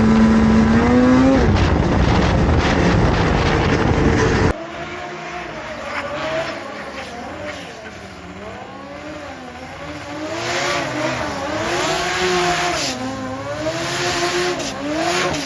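Vintage two-stroke snowmobile engines running. For the first few seconds one engine runs at a steady speed with a slight rise in pitch. After an abrupt change at about four and a half seconds, engines rev up and down repeatedly.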